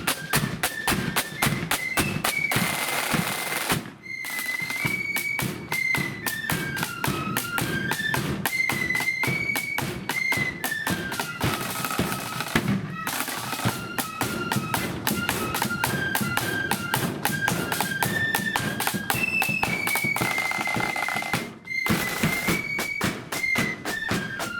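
Marching flute band playing a march: flutes in unison carry the melody over fast snare drumming and bass drum, with crashes of cymbals every several seconds.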